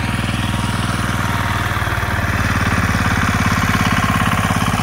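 Single-cylinder diesel engine of a walk-behind tractor running steadily with a fast, even chug while it pulls a cultivator between corn rows.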